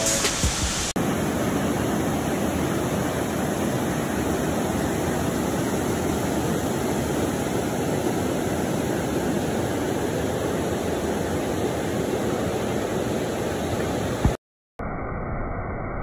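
Waterfall cascading over rocks: a steady rushing of falling water. It breaks off for a moment near the end and comes back duller.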